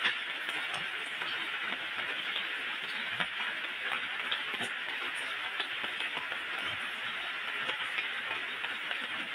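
Steady rain falling on tiled roofs and a wet lane, a constant hiss with scattered sharp taps of drips at irregular moments.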